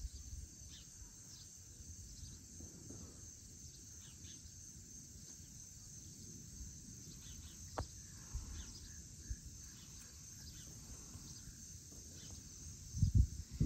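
Evening insect chorus, a steady high-pitched trill, with faint scattered chirps over a low wind rumble on the microphone. A louder low rumble comes near the end.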